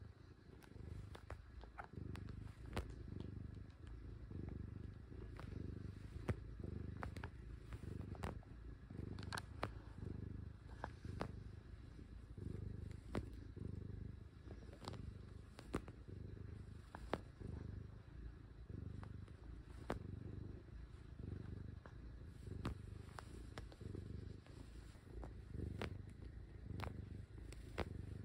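Domestic cat purring close to the microphone, a steady low purr that swells and eases about once a second, with small clicks scattered through it while the cat kneads.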